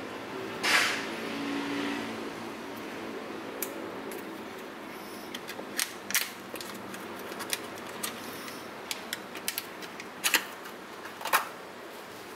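Cellophane wrapper being peeled and torn off a playing-card deck: a loud crinkling rustle about a second in, then scattered sharp crackles and clicks of the plastic.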